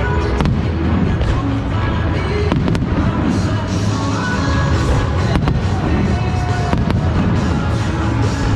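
Aerial fireworks going off: a few sharp bangs and dense crackling over a continuous low rumble, with music playing loudly throughout.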